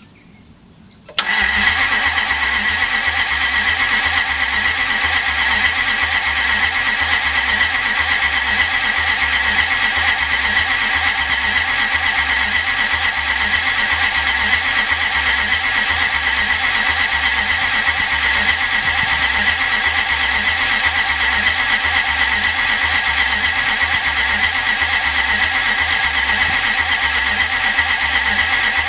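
Toyota 1UZ-FE V8 being cranked on its starter motor without firing, the fuel pump fuse pulled so it only turns over to build oil pressure in the freshly installed engine. It starts suddenly about a second in as a steady starter whine over an even, rhythmic low pulsing, with no change in speed or loudness.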